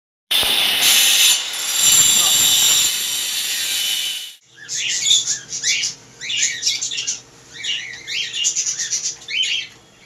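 A power tool grinds or cuts into masonry with a loud, hissing whine that stops abruptly about four seconds in. Caged pet birds then chirp in short calls about once a second over a faint steady hum.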